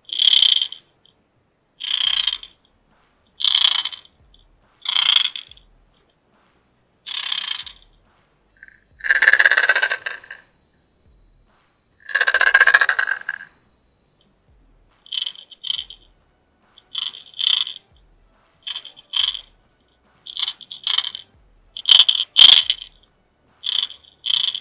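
Strike Pro Flap Jack 75S sinking lipless crankbait (rattlin) rattling underwater in short bursts, its internal rattle balls clattering. At first single rattles come about every second and a half, then two longer, lower rattles midway, then quicker paired rattles, the loudest near the end.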